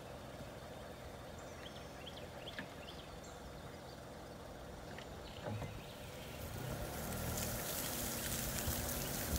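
A vehicle engine running steadily, with a few faint bird chirps; about two-thirds of the way through the sound grows louder as the vehicle moves off, with wind rushing over the microphone.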